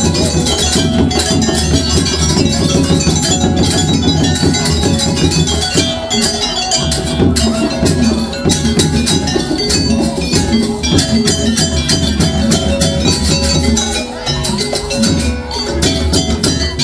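Live jaranan accompaniment: a gamelan-style ensemble of hand drums and tuned gongs playing a fast, dense beat, with held melodic notes over it.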